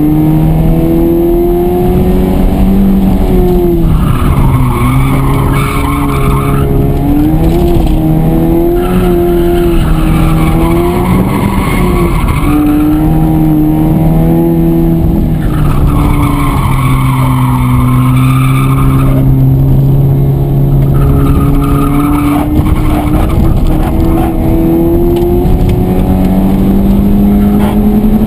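Honda Civic heard from inside the cabin, its engine worked hard with the pitch rising and falling as the driver goes on and off the throttle, and the tyres squealing through corners in four stretches of a few seconds each.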